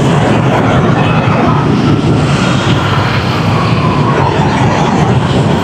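Steady noise of dense rush-hour motorbike traffic, heard from a motorbike riding in the jam, with engines running all around and no single event standing out.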